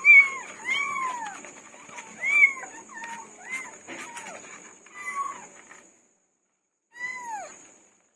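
Several kittens meowing in high calls that rise then fall, overlapping one another, with a short pause about six seconds in before one more meow.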